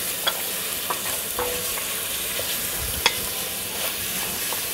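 Pieces of lamb shoulder sizzling in hot butter in a stainless steel pot over a strong flame as they brown, with a wooden spoon stirring and knocking in the pot. A steady hiss with scattered small pops and clicks, one sharper about three seconds in.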